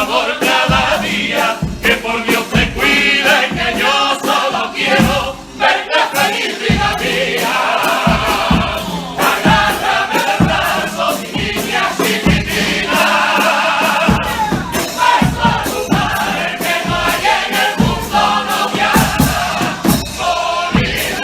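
Carnival comparsa choir singing in several voices to instrumental accompaniment with a steady drum beat, with crowd noise mixed in.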